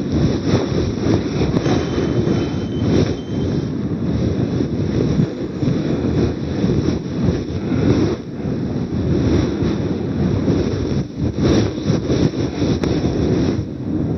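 A duster scrubbing back and forth across a whiteboard as it is wiped clean: a continuous rough rubbing noise that rises and falls with the strokes.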